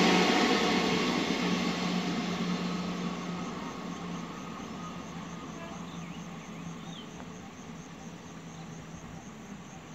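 Passenger train's coaches rolling away down the line, their rumble on the rails fading steadily into the distance.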